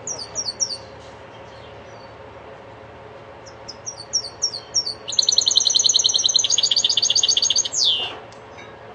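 Caged common linnet × canary hybrid singing a goldfinch-style song. Two runs of short, quick falling notes lead into a loud, fast trill of about three seconds, which ends in one longer falling note.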